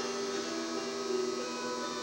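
Steady electrical hum from running battery-charger rectifiers: several tones held together, some of the middle ones shifting slightly in pitch.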